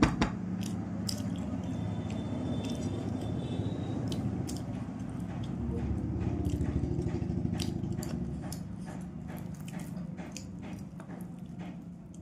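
Close-up eating sounds of rice and fish curry: steady chewing with many small wet clicks and squishes, and a sharper click just after the start.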